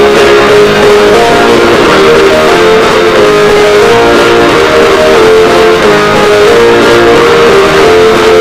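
Instrumental theme music: a melody of held notes over a steady accompaniment.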